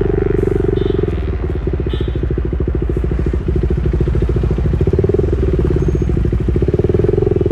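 KTM Duke 390's single-cylinder engine running through an aftermarket Austin Racing replica full-system exhaust, a rapid, even train of exhaust pulses whose note swells slightly a few times.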